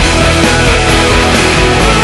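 Loud, dense heavy rock music.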